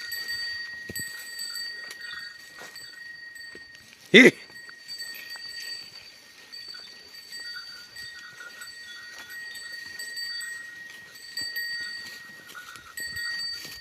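Small neck bells on walking cattle ringing steadily as the animals move, over the scuff of hooves on a dirt track. About four seconds in there is one short, loud call to the animals.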